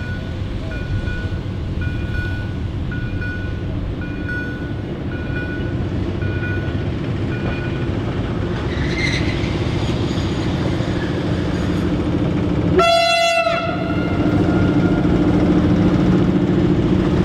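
Level-crossing warning signal beeping about twice a second, fading out about halfway through, as an SU42 diesel locomotive hauling passenger coaches approaches. About thirteen seconds in the locomotive sounds one short horn blast, and its diesel engine then grows louder as it nears.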